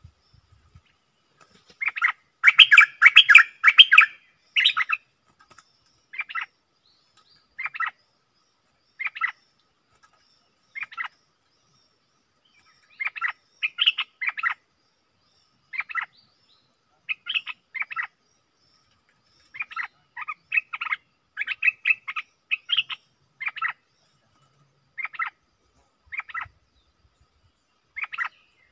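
Stripe-throated bulbul singing short, quick phrases that recur every one to two seconds, with a dense run of song about two to four seconds in.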